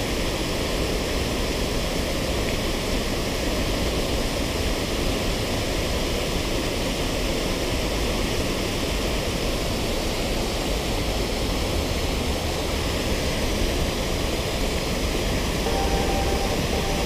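Water spilling over a low concrete weir into a river pool: a steady, even rush of falling water.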